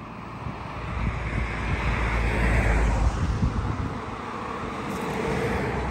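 A vehicle passing on the road, its tyre and engine noise swelling to a peak about halfway through and then fading, with wind buffeting the microphone underneath.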